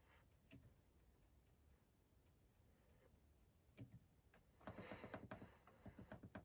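Faint clicks from the program selector dial of a Beko WML7163O4LP1 washing machine being turned through its settings: a single click or two, then a quick run of clicks in the second half.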